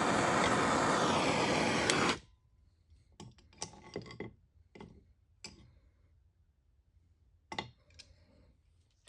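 Handheld propane torch running with a steady hiss, shut off abruptly about two seconds in. A few scattered light clicks and knocks follow.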